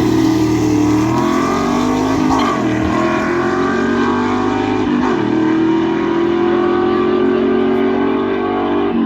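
Vehicle engine accelerating hard on a drag strip, its pitch climbing and dropping back at gear shifts about two and a half and five seconds in, then climbing again. It cuts off abruptly at the very end.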